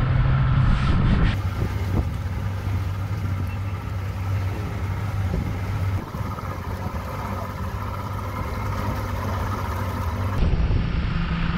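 A 200 HP Mercury Saltwater Series outboard running with the boat under way, with wake water rushing and wind on the microphone. The engine note shifts abruptly a few times as separate shots are cut together.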